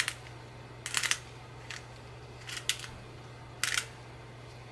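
Sea salt grinder being twisted over a steak: about five short, gritty grinding bursts, roughly one a second.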